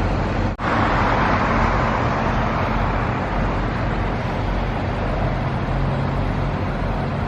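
Steady road traffic noise, a continuous rush of passing cars with a low engine hum underneath, broken by a brief dropout just after the start.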